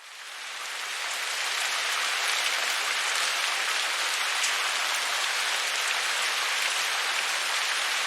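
Heavy rain falling, a steady dense hiss of drops that fades in over about the first two seconds and then holds even.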